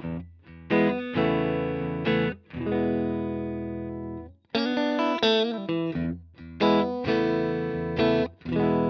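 Stratocaster-style electric guitar with single-coil pickups played through a Strymon Iridium modeling amp on its Fender clean setting: chords struck and left to ring out, with a short break about halfway.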